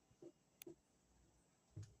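Near silence: room tone with a few faint, short taps.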